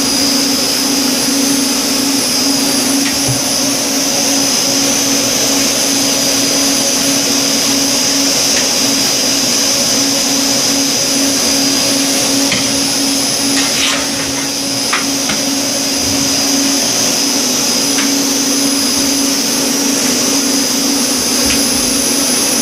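Loud, steady machine-room drone of cooling fans and air handling around an electrical switchboard, with a constant hum and a high whine over it. A few faint clicks sound partway through.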